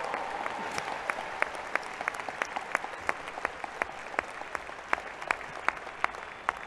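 Audience applauding, slowly thinning out, with individual sharp claps standing out from the general clapping.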